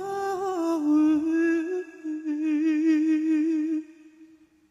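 Male singer into a microphone, holding the last note of a ballad with a wide vibrato. The note fades out a little before four seconds in.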